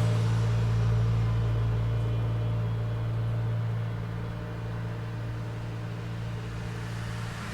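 City street traffic: a steady low engine hum from a vehicle idling close by, slowly fading, in a lull between passing cars.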